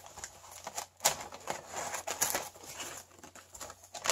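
Small scissors snipping through a brown paper envelope and its clear tape, with paper rustling and crinkling as the envelope is torn and pulled open. It comes as irregular clicks and short scratchy bursts.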